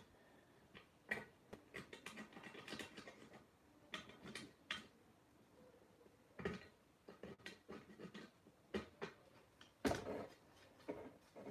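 Plastic tool scraping residue off the steel shell of a WWI German M16 helmet, in short irregular scratching strokes, with a louder knock about ten seconds in as the helmet is handled.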